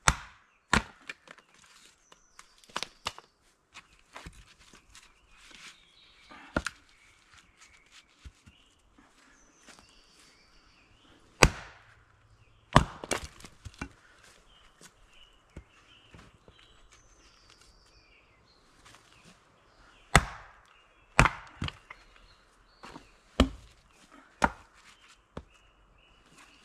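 Axe chopping wood: sharp single knocks at irregular intervals, some in quick pairs or threes, with quiet gaps of several seconds between clusters.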